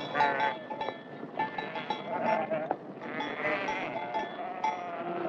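Several farm animals calling over one another in short, overlapping cries, with bells clinking.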